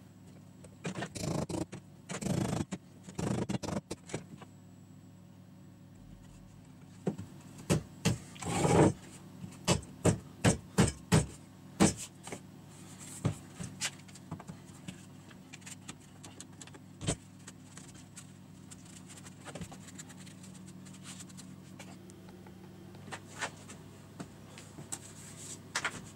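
Wooden stool parts being handled and fitted together: scraping and rubbing near the start, then a run of sharp knocks on wood about two a second, then scattered taps and clicks.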